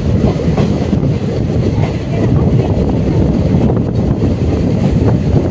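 DEMU (diesel-electric multiple unit) train running at speed: a steady rumble, with wind buffeting the microphone.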